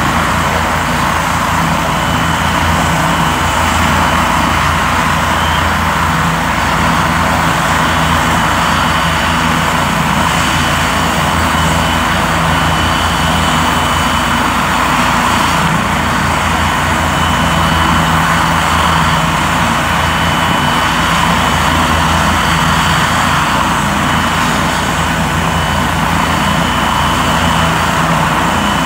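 Helicopter running overhead: a loud, steady engine and rotor drone with a rapid low pulsing from the blades.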